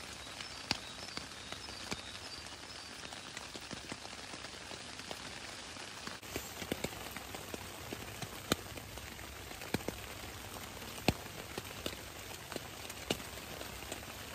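Heavy rain falling on a tarp overhead: a steady hiss with irregular sharp taps as single large drops hit the fabric.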